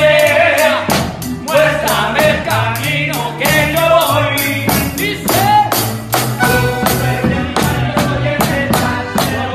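Live band music from accordion, a small guitar-like string instrument and drum kit, with a man singing over a steady drum beat.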